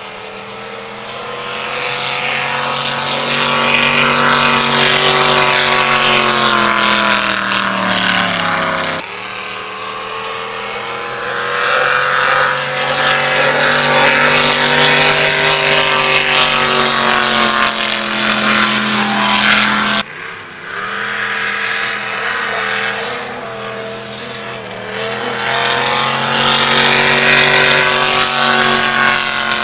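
Supercharged drag boat engines running hard across the water in three separate runs, broken by sudden cuts about 9 and 20 seconds in. In each run the engine note climbs and then falls away.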